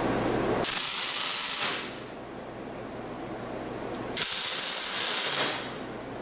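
Two loud bursts of hissing, each lasting just over a second, about three and a half seconds apart.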